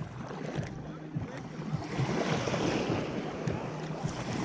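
Wind rushing over the microphone with lake water lapping at the shore, a steady noisy hiss.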